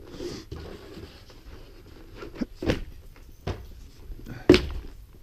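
A few sharp knocks on a snowy wooden deck, the loudest about four and a half seconds in, over faint scuffing.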